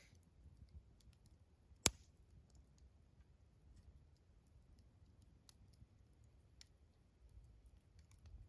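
Faint, scattered small clicks and ticks over a low rumble, with one sharp click about two seconds in.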